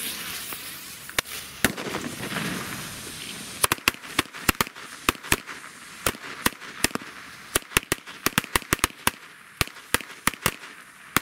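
Avalon firecracker string going off: a hissing fuse with a couple of lone cracks, then from about three and a half seconds in a fast, irregular run of some thirty sharp bangs, several a second.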